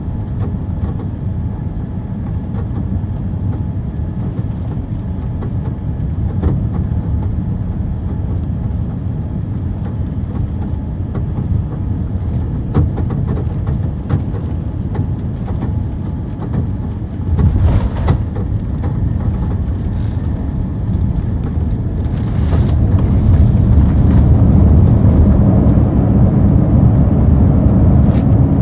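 Steady low rumble of a Boeing 787 jet heard from inside the cabin. A brief, louder burst of noise comes about 17 seconds in, and from about 22 seconds in the rumble grows louder and stays up.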